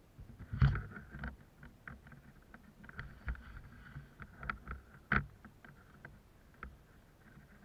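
Irregular clicks and knocks of a player's gear and the body-worn camera being jostled as he turns and walks, with two louder knocks, one near the start and one about two-thirds of the way through.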